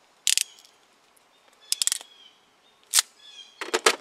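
Sharp clicks and rattles of a ratcheting wire crimper being handled, in four short bursts, the second and the last each a quick run of clicks.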